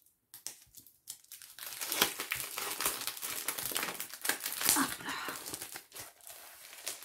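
Packaging crinkling and rustling as it is handled and unwrapped. The crinkling starts about a second and a half in, runs dense for several seconds and eases off near the end.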